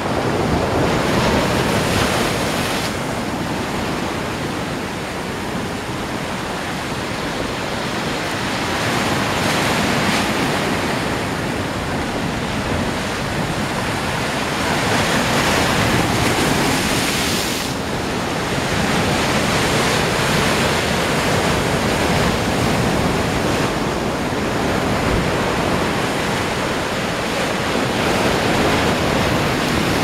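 Black Sea surf breaking over shoreline rocks and foaming back, a continuous rush that swells louder every several seconds as each wave comes in.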